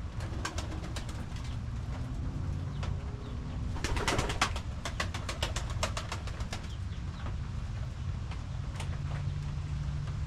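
Domestic pigeons cooing low in the coop over a steady low rumble, with scattered sharp clicks and a denser burst of clicking and rustling about four seconds in.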